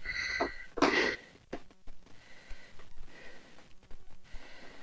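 A man's wheezy, sniffing breath: a short whistly breath at the start and a louder breathy exhale about a second in, then a few faint clicks.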